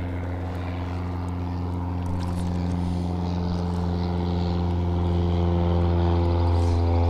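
Steady drone of an engine from a passing motorboat or small propeller plane, with one even pitch throughout, growing slowly louder.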